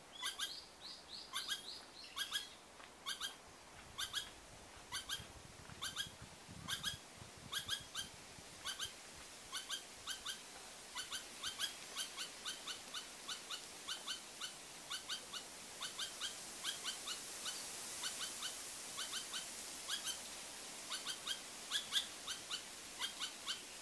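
Pallas's squirrel giving a long, irregular series of short, sharp calls, about two to three a second, in the way this species gives its alarm calls.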